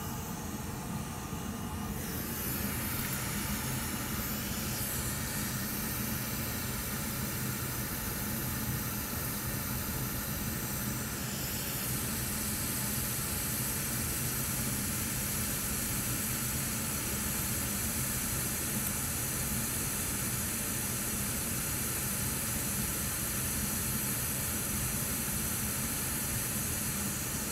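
Hot air rework station blowing a steady hiss onto the circuit board, melting the solder around a burnt pad that has fused to the board. The hiss grows brighter about two seconds in and again around twelve seconds in.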